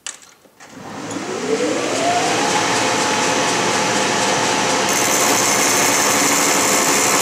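Metal lathe switched on, its spindle drive whining upward in pitch as it comes up to about 600 RPM with a 6-flute roughing end mill in the chuck, then running steadily. About five seconds in, a high hiss joins as the end mill begins cutting dry into the steel tube.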